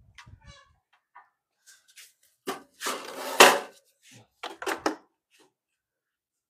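A few knocks, then a short scraping clatter and more knocks, loudest about three and a half seconds in, as hard objects are handled and moved.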